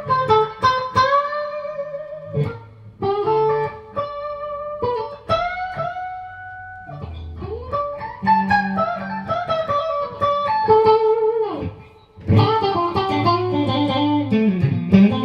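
Clean electric guitar, a Squier Stratocaster Deluxe through a diode-bridge compressor pedal into a Mesa/Boogie Mark Five:25 on its clean channel. He picks single notes and double stops with string bends and slides, pauses briefly about twelve seconds in, then plays fuller sustained phrases. The compression gives a smooth attack with a little quack while staying pretty transparent and clean.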